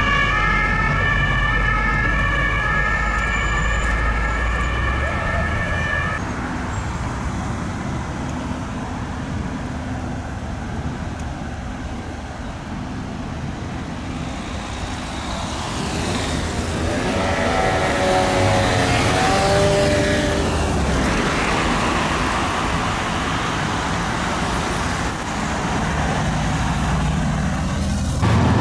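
French two-tone emergency sirens over city traffic. A siren alternates between two pitches for about the first six seconds and stops suddenly. After a stretch of traffic noise, a fire-brigade ambulance's two-tone siren comes up through the traffic, loudest around the middle, and fades into engine and tyre noise.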